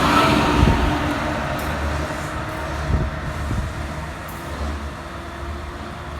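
MARC commuter train running on the tracks, its motor hum and rail noise fading steadily as it moves away.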